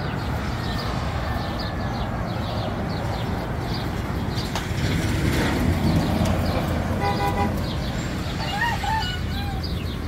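Steady outdoor street-traffic rumble, with a quick run of vehicle horn toots about seven seconds in and a brief bird call shortly after.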